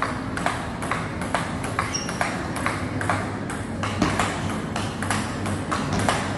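Table tennis rally: the celluloid-type ball clicks off the paddles and the table in a quick, even rhythm of about two to three clicks a second, over a low steady room hum.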